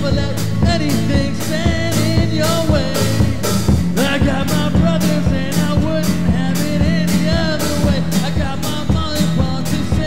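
Upbeat rock-and-roll style song: a voice singing over a steady drum beat and bass.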